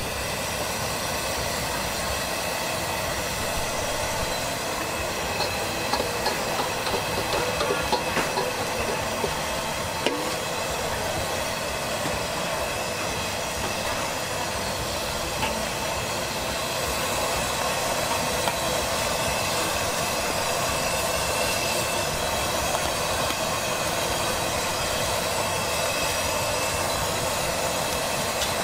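Battered squid deep-frying in a large wok of hot oil, sizzling steadily, with a few sharper pops and knocks in the first ten seconds.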